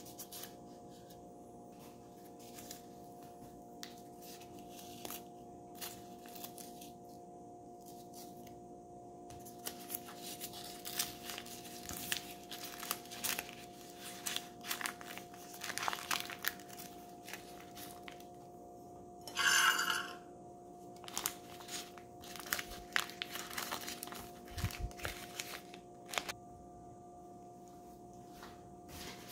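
Dry bamboo-leaf wrapping of a zongzi crinkling and tearing as it is peeled open by hand: a string of short crackles, with one louder rip about two-thirds of the way through, over a faint steady hum.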